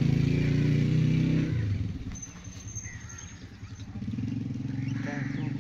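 A motorcycle engine running, loud at first, dropping away about one and a half seconds in and coming back about four seconds in, with birds chirping faintly in the lull.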